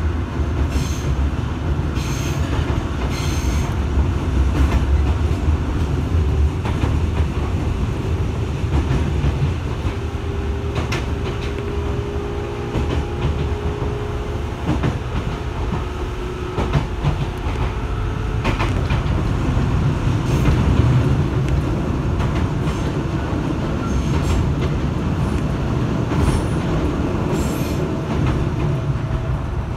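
Inside a JR 205-series electric commuter train running along the line: a steady rumble of wheels and motors with frequent clicks over the rail joints. A few brief high-pitched squeals sound near the start and again near the end.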